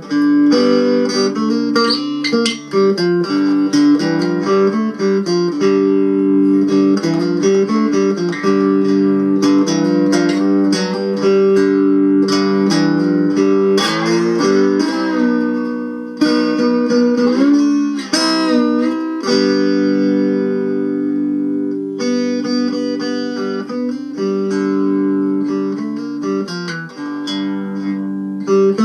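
Homemade cigar-box-style guitar with a pine body, maple neck and tin-sign resonator top, amplified through a piezo pickup, playing a melody over held low notes. Several notes slide in pitch about halfway through.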